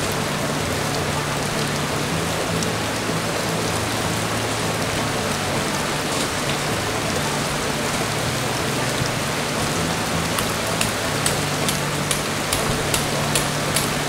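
Steady rain falling, an even hiss, with soft background music underneath. From about ten seconds in, sharp irregular ticks of drops sound close by.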